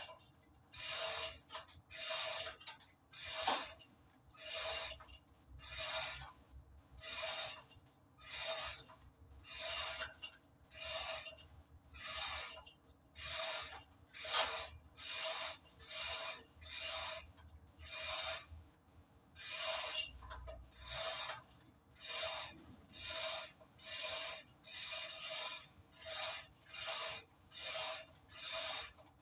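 Steady rhythm of rasping hand strokes on a hard surface, about one every second and a quarter, some two dozen in all, like a file or abrasive worked back and forth.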